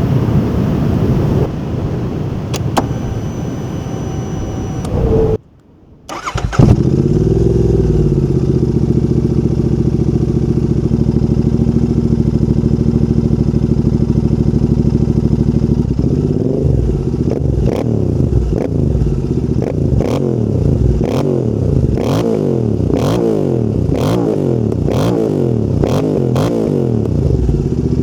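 Royal Enfield Interceptor 650's parallel-twin engine breathing through a full TEC exhaust system. After a brief silence about six seconds in, it starts and idles steadily. From about halfway on, the throttle is blipped over and over, the revs rising and falling about once a second, with sharp cracks from the exhaust.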